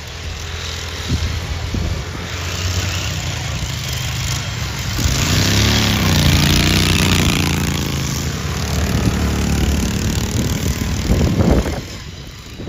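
Racing ride-on lawnmower engines running at speed, with one mower passing close in the middle, its engine note rising and then falling away. Near the end there is a shorter swell of another engine.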